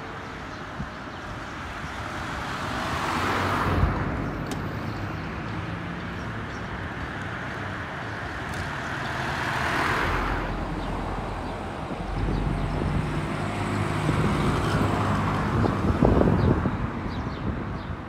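Street traffic with cars driving past. Two vehicles pass close, one about four seconds in and a van about ten seconds in, each swelling and fading. In the second half a nearby engine runs with a low hum that is loudest near the end.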